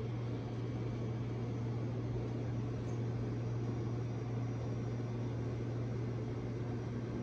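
A steady low hum under a faint even hiss, unchanging throughout.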